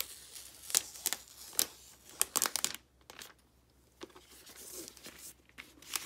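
Thin plastic protective film being peeled off and crinkling in the hands, in short crackling spurts with a quiet pause midway and softer rustling after it.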